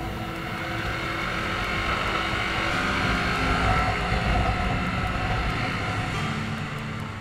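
Sport motorcycle's engine running at a fairly steady, moderate throttle, heard from on the bike, with wind and road noise. The sound swells slightly around the middle and eases off toward the end.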